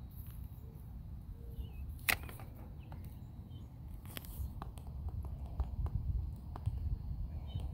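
Low rumble of phone-microphone handling and wind while walking on grass, with two sharp clicks about two and four seconds in and more light ticks toward the end. Faint short bird chirps sound now and then.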